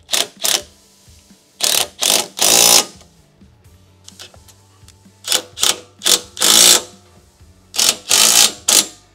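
Cordless impact wrench hammering in short bursts, a few at a time with pauses between, the longest about half a second, as it runs nuts down tight on frame bolts.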